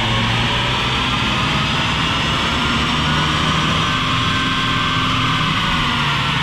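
2021 Ford Bronco's 2.3-litre turbocharged EcoBoost four-cylinder engine pulling under full load on a chassis dynamometer, its pitch climbing slowly as the revs build.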